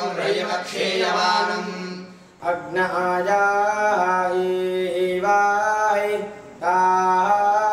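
Male voices chanting together, then from about two seconds in a single young man singing a devotional verse solo in a clear melodic line over a steady drone. There is a short pause near the end.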